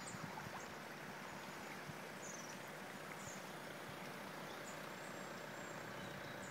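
Steady, even rush of flowing floodwater, with a few faint high bird chirps over it.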